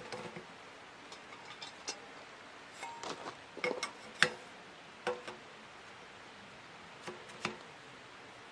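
Sheet-metal stovepipe sections clinking and knocking as they are fitted onto a small wood stove: irregular sharp taps, some with a brief metallic ring, the loudest a little past four seconds in.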